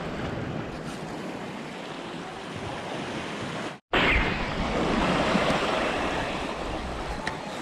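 Sea waves washing against a rocky shoreline, a steady rushing wash. It cuts out for a moment about four seconds in, then returns louder.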